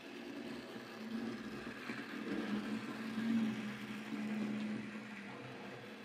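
A Hornby Dublo Class 20 model diesel locomotive runs around an OO gauge track loop. Its small DC electric motor gives a steady hum, mixed with wheel and rail noise, that rises and falls in loudness. The motor has fresh brushes and has been cleaned and oiled, and it runs smoothly.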